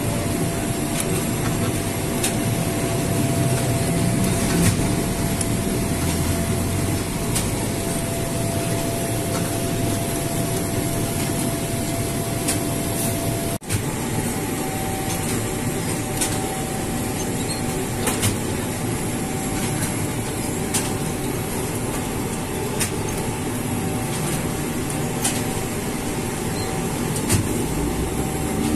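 Semi-automatic flatbread dough-sheeting machine running: a steady mechanical rumble from its rollers, gears and belt, with a faint steady whine and scattered light clicks. The whine sits a little higher after a brief break about halfway through.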